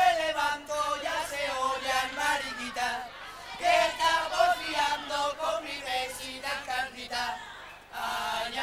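Carnival cuarteto of young male voices singing a tune together, phrase by phrase, with a short break about three seconds in.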